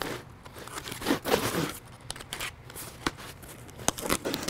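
Utility knife slitting the packing tape along a cardboard box's seam, with tape and cardboard tearing and crinkling in a run of short scrapes and clicks.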